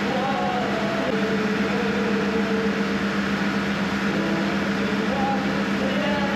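A steady engine drone with a constant low hum, with people talking indistinctly over it.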